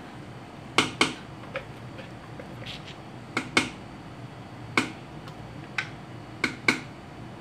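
Blender jar, silicone spatula and steel pot knocking together as sweet potato paste is scraped out of the jar into the milk: a string of about a dozen short, sharp taps and clicks at uneven intervals.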